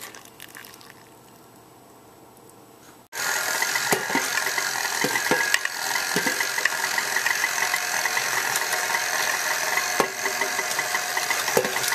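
Stand mixer switched on about three seconds in, its motor running steadily with a fast rattle of the wire whisk as it beats hot cream into egg yolks.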